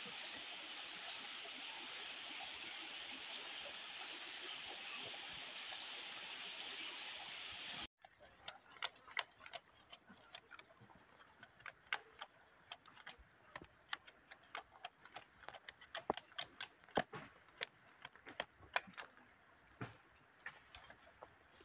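A steady, high-pitched insect chorus that cuts off abruptly about eight seconds in. After that, a quieter stretch of many irregular sharp clicks and ticks.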